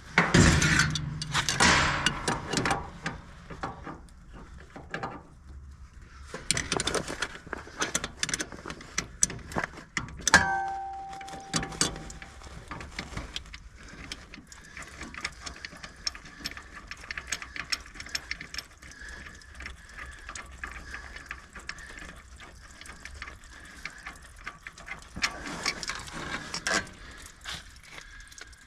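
Wrench work on metal pump fittings: irregular clicking and clanking, with one louder ringing metal clank about ten seconds in.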